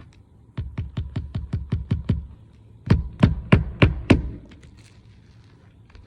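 Hammer driving roofing nails into a replacement asphalt shingle: a quick run of about a dozen light taps, about seven a second, then after a short pause five or six louder, slower blows.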